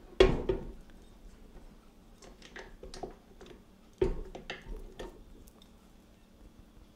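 Handling of a switched-off stand mixer: a clunk a quarter second in and another at about four seconds, with small knocks and clicks from the stainless steel bowl and dough hook as pasta dough is pulled off the hook.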